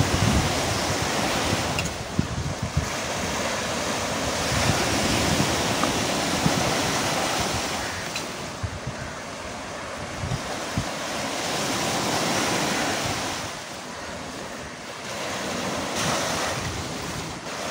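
Sea surf washing up the beach, rising and falling in slow swells, with wind buffeting the microphone.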